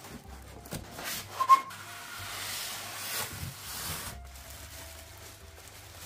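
Cardboard, polystyrene foam and plastic wrap rubbing and scraping as a boxed tower heater is slid out of its carton, with a longer rustling scrape in the middle and one short, sharp squeak about a second and a half in.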